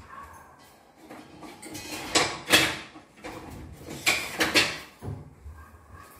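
Kitchen handling noise: a few sharp knocks and scrapes in two clusters, about two seconds in and again about four seconds in, with fainter rustling between.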